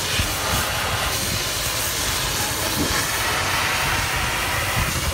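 Oxy-fuel cutting torch hissing steadily as it cuts through steel plate, with a low rumble underneath.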